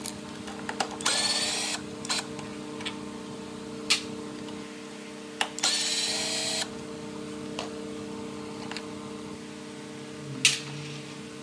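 Cordless drill-driver with a 10 mm socket spinning the nuts off the air-filter housing of a Honda GCV160 mower engine. It runs in two short bursts of about a second each, the first about a second in and the second about halfway through, with light clicks of handling in between.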